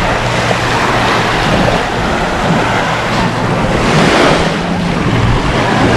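Sea waves washing ashore in a steady wash of surf, with wind rumbling on the microphone; the surf swells about four seconds in.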